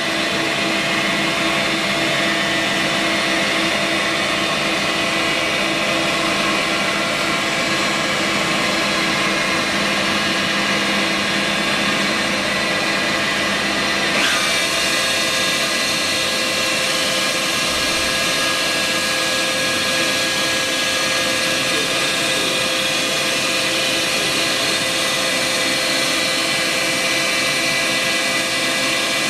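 Maho MH 600 E2 milling machine running: a steady machine whine made of several steady tones. About halfway through the sound changes and turns brighter, with a brief rising whine.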